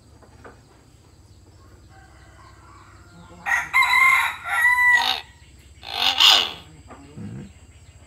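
Pet hill myna giving loud calls. A run of clear, pitched notes starts about three and a half seconds in, a harsher call follows around six seconds, and a short soft one comes near the end.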